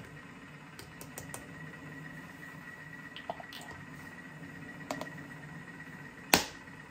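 A few light plastic clicks and taps from a measuring scoop, then a sharp snap about six seconds in as a plastic lid is pressed onto a coffee tin. Under it a Thermomix hums steadily with a faint high tone while it heats water.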